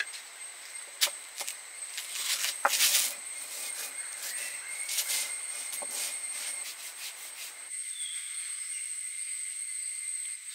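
Stone roller of a traditional stone grinding slab crushing dry rusk into crumbs: gritty rubbing with sharp cracks as pieces break, loudest a couple of seconds in.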